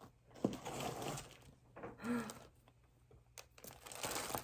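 Plastic packaging crinkling as a bagged t-shirt is handled and pulled out of a cardboard box, in two spells of rustling with a short pause between them.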